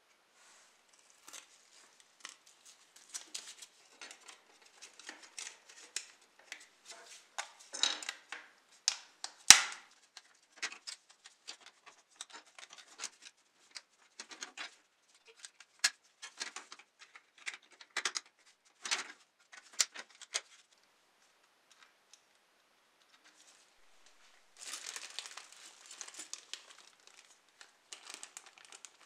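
Small plastic model-car parts and foil being handled: a run of light clicks, taps and scrapes, with one sharp snap about a third of the way in. After a short pause, a clear plastic bag crinkles near the end.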